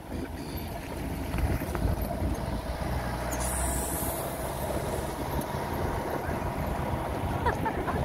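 A pickup jeep's engine running with a steady low rumble as it drives along a rough dirt track, heard from its open rear load bed. A brief hiss cuts in about three and a half seconds in.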